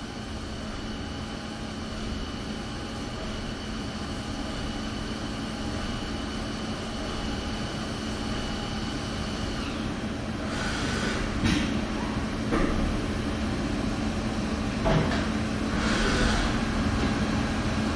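Haas DS30SSY CNC lathe machining a 4340 steel bolt blank under flood coolant, likely threading: a steady hum with a high whine that stops about ten seconds in. After that the machine gets louder, with a few sharp clunks and short bursts of hiss as it moves on to the next operation.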